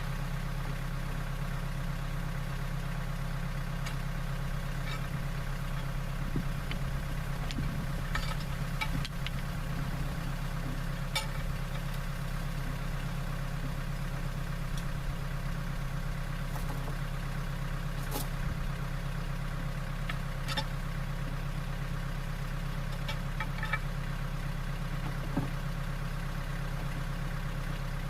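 An engine idling steadily, with a few faint clicks and knocks scattered over it.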